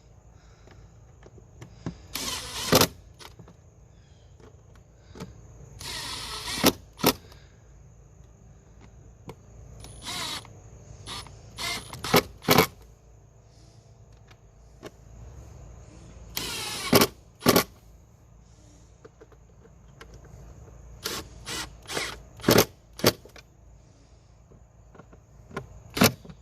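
Cordless power driver on its lowest setting running in about four short spurts, driving Torx screws back into an airbox cover. Sharp clicks and taps come between the spurts.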